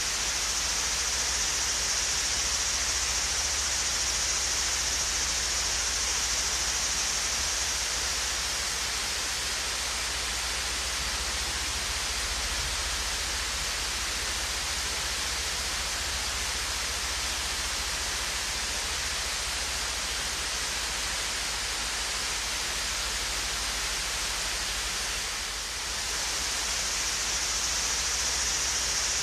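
Swayze Falls, a small, gentle waterfall, rushing steadily: an even wash of falling and splashing water. The hiss is brighter for the first several seconds and again near the end, after a brief dip in level.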